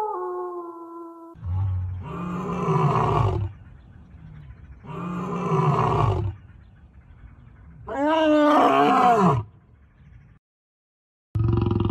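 The tail of a falling howl, then a large animal roaring three times, each roar lasting about one and a half to two seconds with short pauses between them.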